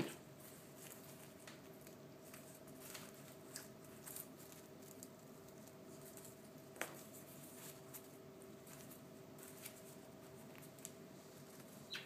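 Faint, scattered light clicks and taps as a budgie and a hand move among plastic Easter eggs and artificial grass, over a faint steady hum.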